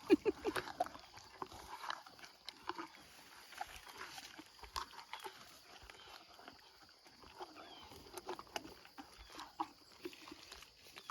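Horse chewing an apple, with irregular crisp crunches.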